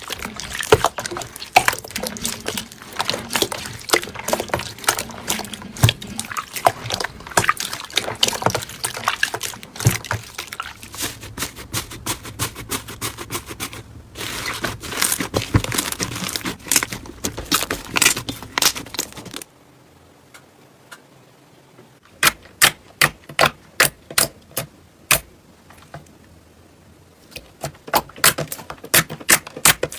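Slime being squeezed and stretched, giving a dense wet crackling and popping. After an abrupt cut, sharp evenly spaced clicks at about three a second come in two runs.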